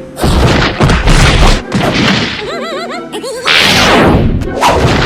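Cartoon sound effects: a string of loud crashes, whacks and thuds, with a quick run of bouncing, up-and-down pitched tones about halfway through.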